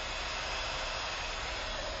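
Dyson Ball upright vacuum cleaner running: a steady rushing whoosh of motor and airflow.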